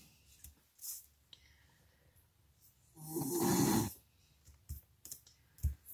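A man snoring: one long snore, about a second, starting about three seconds in. Faint taps and rustles of paper being handled come before and after it.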